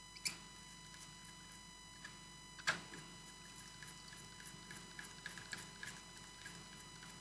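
Faint clicks and light scraping of a spatula stirring rosin into alcohol in a small container, with two sharper clicks, one right at the start and one about two and a half seconds in, and a quicker run of small ticks in the second half. A faint steady high whine sits underneath.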